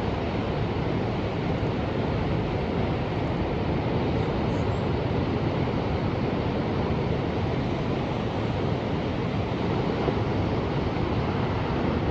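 Ocean surf: a steady wash of waves, without distinct breaks.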